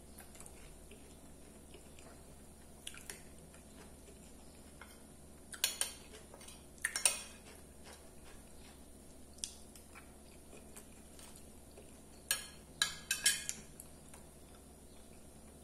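Metal spoon scraping and clinking against a ceramic plate while scooping up food, in a few short clusters of clicks. The loudest come about seven seconds in and again around thirteen seconds in.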